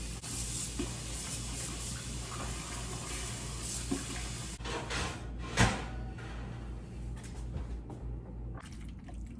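Kitchen tap running water into a pot in the sink, a steady rush, with a sharp clunk a little past halfway.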